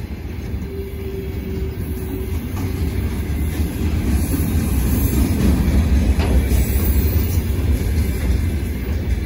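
Freight wagons rolling past on the rails: a steady, dense rumble of wheels on track that grows louder through the middle. A short steady tone rings out about a second in.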